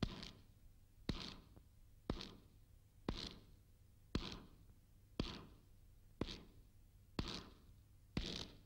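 Slow footsteps on stone stairs, nine evenly spaced steps about a second apart, each a sharp knock with a short fading tail.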